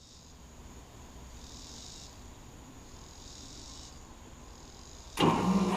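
Faint insects trilling in slow pulses, then about five seconds in a 2009 Carrier Comfort heat pump starts up suddenly. Its Copeland scroll compressor and outdoor fan motor set in with a loud, steady hum.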